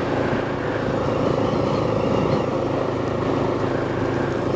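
Motorcycle engine running at a steady speed while being ridden, with an even rush of road and wind noise.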